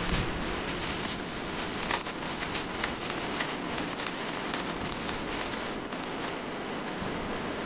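Thin clear plastic wrapper crinkling and crackling as a pack of foam darts is torn open and darts are pulled out, over a steady hiss.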